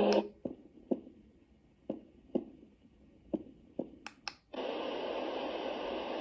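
Tuodi portable white noise machine changing sounds: the playing sound cuts off, six short clicks follow in three pairs, then two sharp clicks, and about four and a half seconds in a steady white-noise hiss starts.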